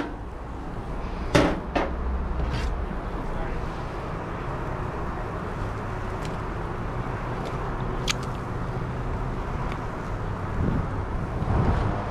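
Steady low background noise with a few short, sharp clicks and taps; the loudest two come about a second and a half in.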